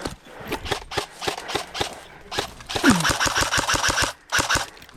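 Airsoft rifle firing: single shots at about four a second, then a long rapid burst about halfway through and a short one near the end.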